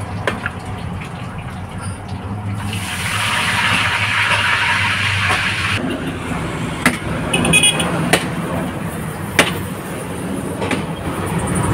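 Cooking oil sizzling in a frying pan, then, after a cut about six seconds in, steady road traffic with vehicles passing and a few sharp clicks.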